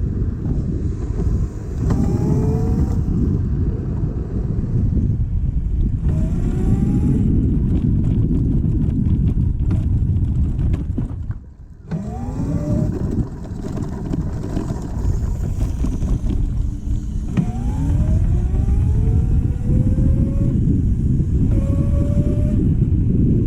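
A Vespa scooter under way, with heavy wind rumble on the microphone. The motor's pitch rises several times as it accelerates. About halfway through the sound briefly dips.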